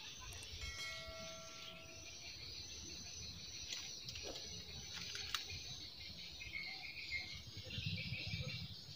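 Steady high-pitched insect drone of a tropical forest edge, with a few faint clicks and rustles of nylon shade-net and string being handled while the net is tied.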